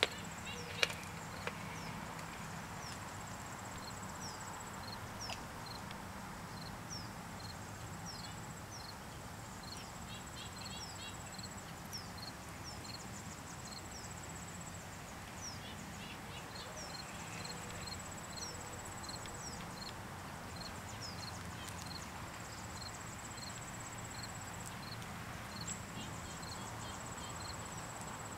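Outdoor summer ambience: a steady high-pitched insect trill with small birds chirping repeatedly over it and a low steady hum underneath. A couple of sharp clicks sound about a second in.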